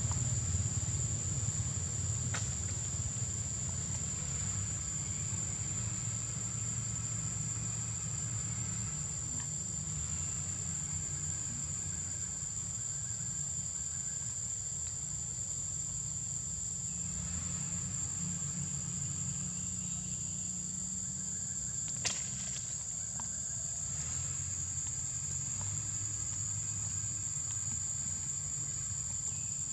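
Steady, high-pitched insect drone that runs on unbroken, over a low rumble. A single sharp click comes about two-thirds of the way through.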